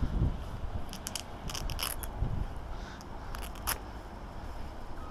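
Small clicks and scrapes from archery gear being handled and fitted, in two short clusters, over a low wind rumble on the microphone.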